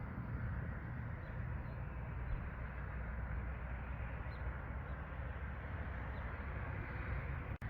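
Storm wind rushing steadily over the microphone with a low rumble, a few faint high chirps scattered through it. The sound cuts out for an instant near the end.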